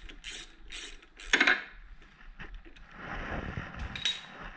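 A socket ratchet clicking in a few quick strokes as a bolt is run in, then metal hand tools clanking and clinking as they are put down and picked up, with a loud clank about a second and a half in.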